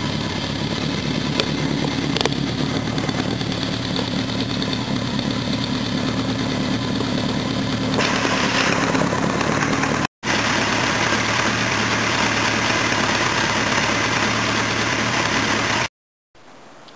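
The 1973 Kawasaki Z1's air-cooled 903 cc DOHC inline-four idling steadily through its four chrome exhausts. The sound drops out for a moment about ten seconds in and stops shortly before the end.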